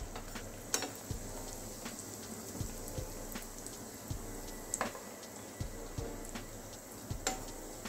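Hara bhara kababs (spinach patties) deep-frying in hot oil on medium heat: a steady crackling sizzle, with a few sharp clicks.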